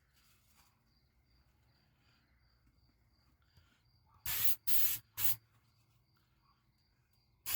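A 2K clear coat aerosol can hissing in three short spray bursts a little past halfway through, with a fourth starting at the very end. These are light mists of clear coat to blend away a hard paint line on a wheel.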